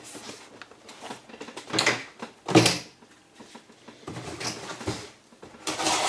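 A cardboard delivery box being opened by hand: several short, noisy bursts of scraping and rustling packaging.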